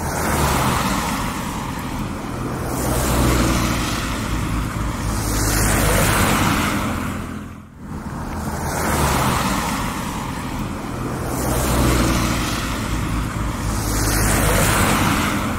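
Rain with road traffic: cars passing on a wet street, the noise swelling and fading as each one goes by. The sound drops out briefly twice, about eight and a half seconds apart.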